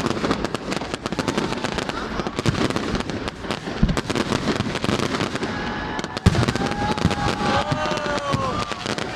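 Fireworks going off: dense, rapid crackling with heavier booms about four and six seconds in, and whistle-like tones rising and falling over the last two seconds.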